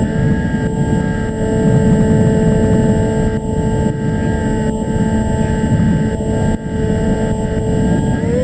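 Electric motor and propeller of an FPV flying wing whining steadily in flight, heard through the onboard camera, with wind rushing over the microphone. Near the end the whine rises in pitch as the throttle is pushed up.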